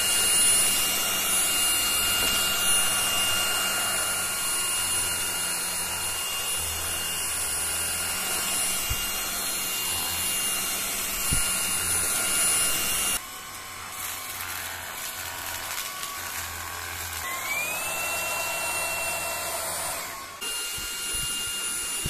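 AGARO Supreme cordless stick vacuum cleaner's brushless motor running with a steady high whine and airflow hiss. About thirteen seconds in the sound drops and the whine stops. A few seconds later the whine rises in pitch and settles steady again.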